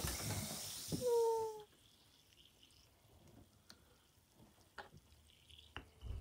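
A faint fizzing hiss of Alka-Seltzer in test tubes, with a short steady tone about a second in. Both cut off suddenly, leaving only a few faint plastic clicks as caps are pressed onto the tubes.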